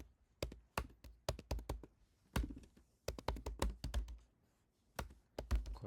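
Computer keyboard typing: quick, irregular runs of keystrokes with short pauses between them.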